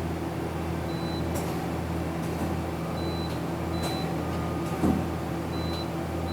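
Okuma LB-3000EX-II CNC lathe's 12-position turret indexing, a brief clunk about five seconds in, over the machine's steady running hum. Short high beeps sound several times.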